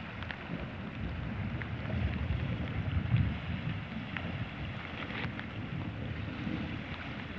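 Wind buffeting the microphone: a low, uneven rumble that swells about three seconds in, with a few faint ticks.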